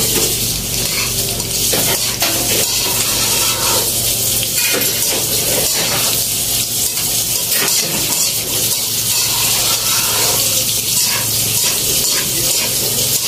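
Pancit noodles and vegetables stir-frying in a wok with a steady sizzle, while a metal utensil scrapes and clinks against the pan again and again as the food is tossed.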